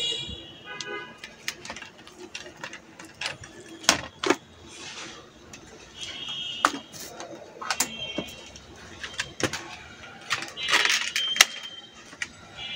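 Sharp clicks and small knocks of hands handling a laptop motherboard and its display cable and connectors on a workbench, with short high chirping tones now and then.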